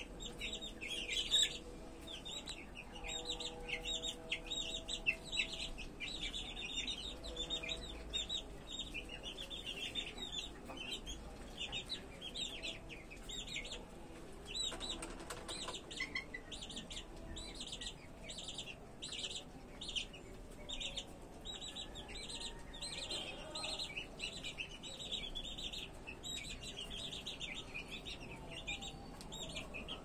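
A brood of young chicks and ducklings peeping continuously: many rapid, high-pitched peeps overlapping without a break.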